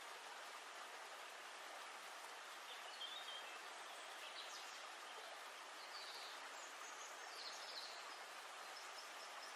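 Faint steady background hiss with a few brief, faint high chirps scattered through it.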